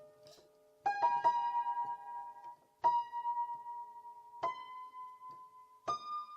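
Solo piano playing a slow prelude: single notes struck about every one and a half seconds and left to ring, the melody stepping up in pitch near the end.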